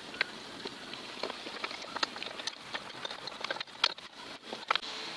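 Irregular light metallic clicks and taps of parts and hand tools as a carburettor is fitted back onto an old stationary engine, with two sharper knocks near the end.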